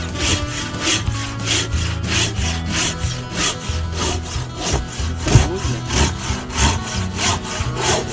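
Hand saw cutting through wood in quick, regular push-pull strokes, about three a second.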